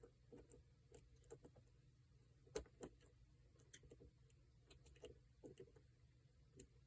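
Faint, irregular small metallic clicks of a lock pick working the security pins of a Paclock 90A-PRO padlock under tension, with one sharper click about two and a half seconds in.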